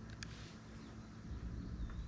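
Quiet outdoor background: a low, steady rumble with one light click about a quarter second in and a faint bird chirp near the end.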